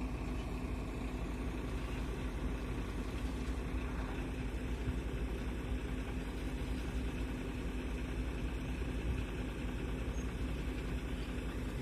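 Large engine running steadily at an even speed, with a constant low hum.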